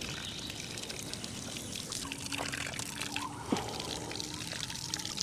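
Water pouring and trickling, a steady splashing with many small drips. A low steady tone comes and goes through the middle, and there is a single knock about three and a half seconds in.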